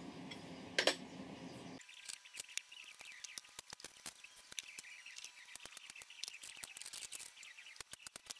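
A sharp metallic clank about a second in over a steady hum, then, once the hum stops, a steady stream of small irregular metal clicks and clinks from sockets and hand tools being handled on the workbench.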